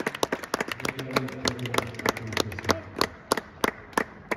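Tennis ball bounced repeatedly on a hard court by a player about to serve, settling into an even rhythm of about three bounces a second from about halfway. Faint voices early on.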